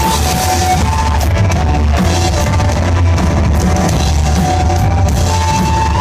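Rock band playing live: drum kit, heavy bass and an electric guitar holding long sustained lead notes.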